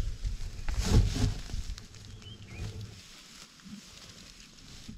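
Black rhinoceros moving through dry grass right over the microphone: grass rustling and heavy low thuds, loudest about a second in, then easing off as it moves away.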